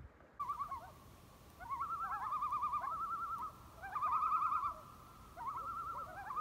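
Common loons giving tremolo calls: rapid wavering, laughing cries in repeated bursts of about a second, several voices overlapping.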